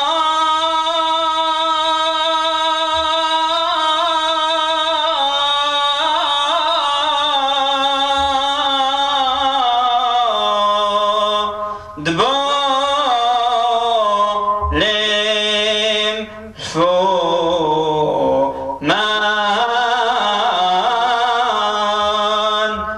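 A solo male voice chanting a Syriac liturgical hymn, with long held, ornamented notes. After a long opening phrase it moves into shorter phrases, with brief breaths between them from about halfway through.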